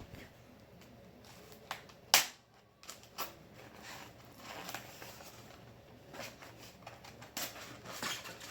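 Scattered small clicks and taps, with one sharp, loud click about two seconds in, from a screwdriver working the tight screws that hold a 1:18 diecast-style model car to its base.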